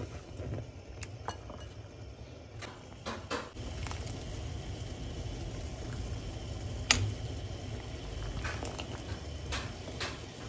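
Water at a rolling boil in a glass pot with chunks of bitter melon, bubbling with a steady low rumble. Several sharp clinks against the pot stand out over it, the loudest about seven seconds in.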